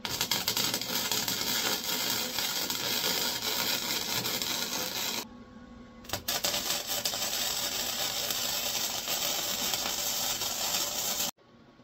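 Gasless flux-core MIG welder arc crackling as it welds a steel window frame. It runs in two stretches of about five seconds each, with a short pause and a brief touch of the arc between them, and stops just before the end.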